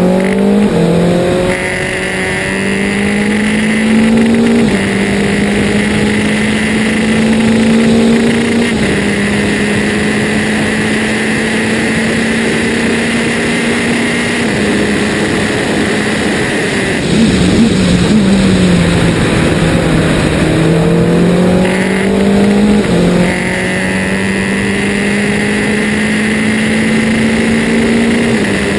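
Onboard sound of a Formula Renault 2.0 single-seater's 2.0-litre four-cylinder engine at full throttle. It upshifts about four times as it pulls down a straight, each shift dropping the pitch. Under braking about two-thirds of the way in it blips through downshifts, then pulls up again and shifts once more near the end, with steady wind rush over the car throughout.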